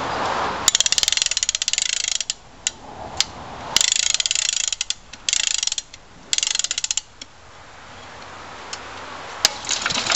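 Wind-up spring starter on a 1966 Briggs & Stratton 3.5 hp lawnmower engine being wound by hand: fast ratchet clicking in four bursts over about six seconds, then a single sharp click near the end.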